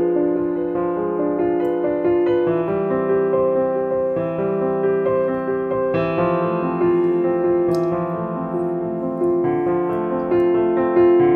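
Background piano music, a slow melody of held, overlapping notes.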